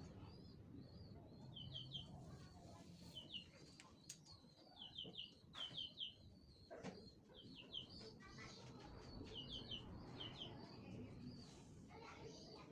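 Faint chirping of small birds: short high calls repeated over and over, with a couple of soft knocks.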